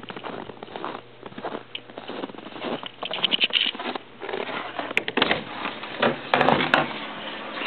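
Footsteps crunching in snow, then a few sharp clicks from the wooden greenhouse door's latch about five seconds in as the door is opened, with louder scuffing and handling noise after.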